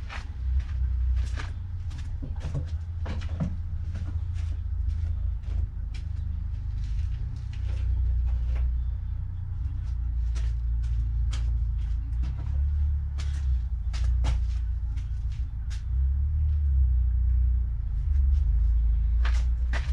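A steady low rumble with irregular sharp clicks and knocks scattered through it, a few every second or two.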